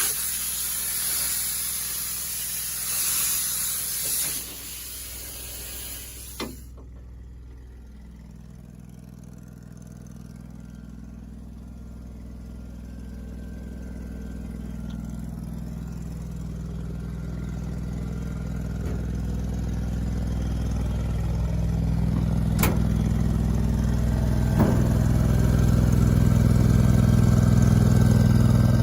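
Truck engine idling steadily, growing louder toward the end. A loud hiss of escaping air runs over it for the first six seconds and cuts off suddenly.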